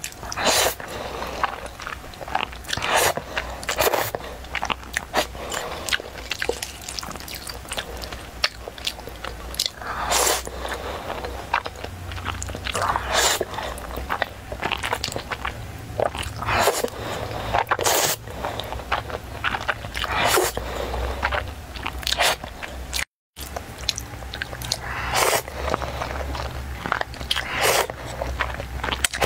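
Close-miked slurping and wet chewing of noodles in a thick dark sauce eaten with chopsticks, loud slurps coming irregularly every second or two. The sound cuts out completely for a moment about four-fifths of the way through.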